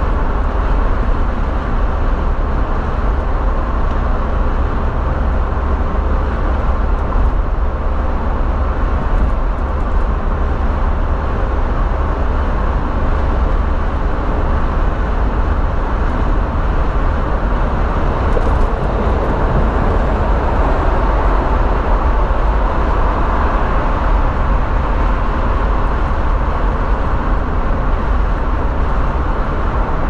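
Steady road and engine noise inside a car cruising at freeway speed: an even low rumble with tyre hiss over it.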